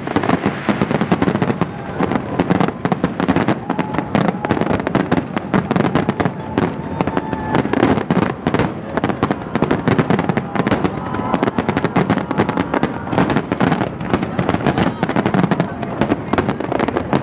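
New Year fireworks display going off continuously: a dense, rapid crackle and popping of bursts, many each second, with no pause.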